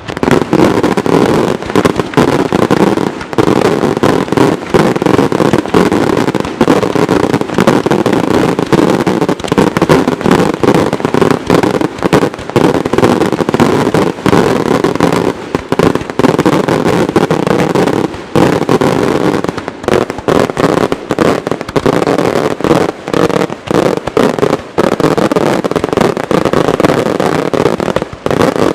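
Maltese daytime fireworks battery: aerial shells bursting in a dense, unbroken barrage of loud bangs and cracks, several a second, heard from close range.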